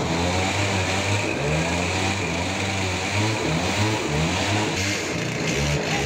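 Sawmill engine running, its pitch stepping up and down over a steady noisy wash.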